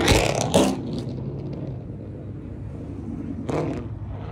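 Car engine running low and steady as a loud acceleration dies away in the first second, with a short burst of noise about three and a half seconds in.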